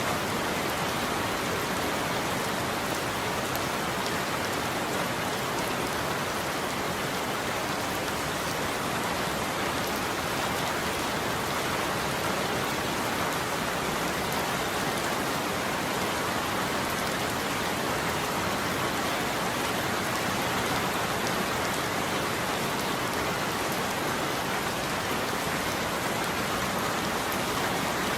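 Heavy, steady rain falling, an even hiss of drops with no thunder.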